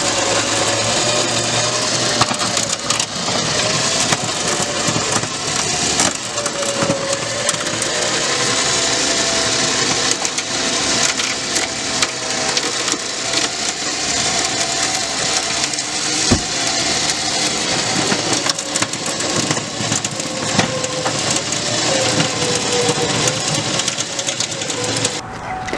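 Electric winch running under load, pulling a car up onto a trailer: a steady, slightly wavering whine with heavy crackling noise throughout.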